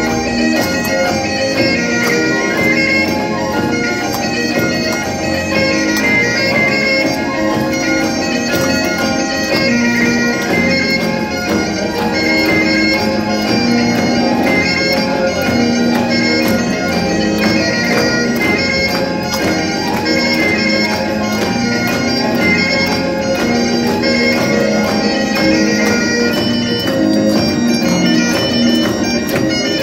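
Bagpipes playing a jig tune, the melody running over a steady drone.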